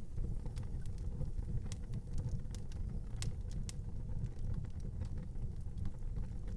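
Wood fire burning in an outdoor fireplace: a steady low rumble with scattered sharp crackles and pops, a few louder ones near the middle.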